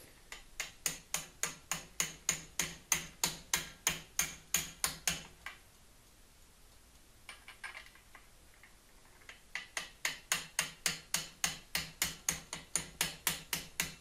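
Claw hammer lightly tapping a 1-inch socket, metal on metal, at about four taps a second, driving a sealed cartridge bearing into a Gary Fisher Evolution bottom bracket shell. The tapping stops for about four seconds midway, with only a few faint taps, then starts again.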